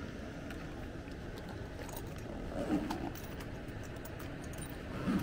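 Tools and meter leads rattling and clinking as they are handled in a tool bag, with a couple of louder knocks about two and a half seconds in and near the end, over the steady running noise of the air handler.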